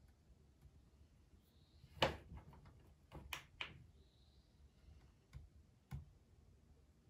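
Light taps and clicks of fingers on a desk lamp's touch-control base: one sharper tap about two seconds in, a quick run of taps just after, and two single taps near the end.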